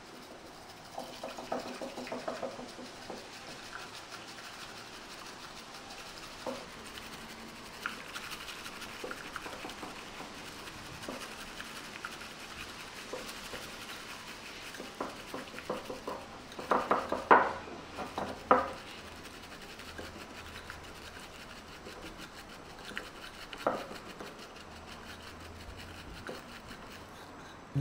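Bamboo matcha whisk (chasen) whisking matcha in a ceramic cup: a fast, steady scratchy swishing, with a few louder knocks about two-thirds of the way through.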